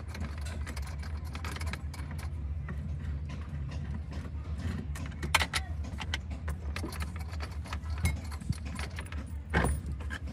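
Small metallic clicks and clinks of a socket wrench with a long extension turning a dashboard bolt and knocking against the truck's metal dash, with a couple of louder knocks about five seconds in and near the end, over a steady low hum.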